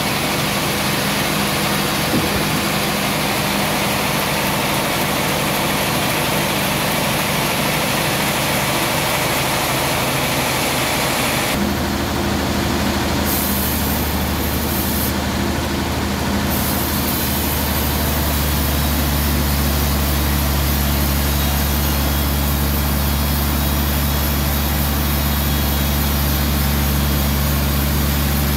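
Large band sawmill running while sawing a suar wood log: a steady machine hum under a hiss from the blade. About twelve seconds in the hiss drops and the low hum grows deeper and stronger.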